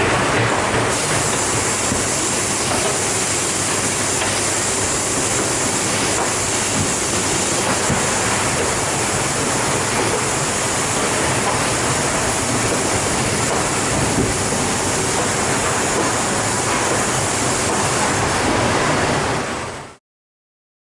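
Priess & Horstmann BAT DTW-CNC feed-through drilling and fitting-insertion machine running with a steady noise and a faint high whine. The sound cuts off suddenly near the end.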